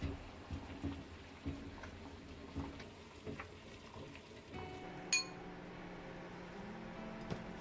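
Soft irregular taps about twice a second as food is handled on a wooden cutting board. Then a steady low hum comes in, with a sharp ringing clink of a metal utensil against a glass bowl about five seconds in and a lighter one near the end.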